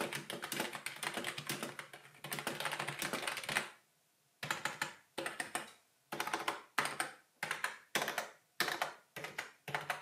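Logitech G213 Prodigy membrane keyboard being typed on. There are about three and a half seconds of fast continuous typing, then a short pause, then a run of separate short clusters of key presses, one after another with brief gaps between.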